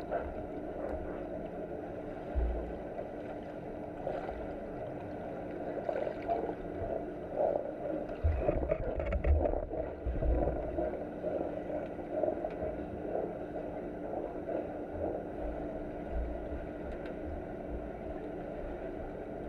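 Muffled underwater rumble of water heard through a submerged camera, with irregular low thuds that are heaviest from about 8 to 11 seconds in.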